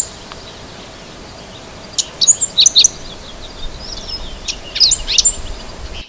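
Five-striped sparrow singing: short phrases of sharp, high notes, about two seconds in and again from about three and a half to five seconds in, over steady low background noise.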